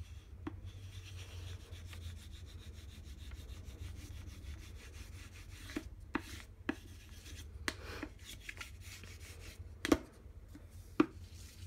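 A wooden spoon rubbed back and forth over the back of a sheet of paper on an inked printing plate, hand-burnishing a monoprint without a press. Several sharp knocks come in the second half, the loudest two near the end.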